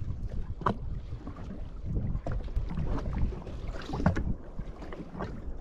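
Water slapping and lapping irregularly against the hull of a drifting Yamaha FXHO WaveRunner, with wind buffeting the microphone.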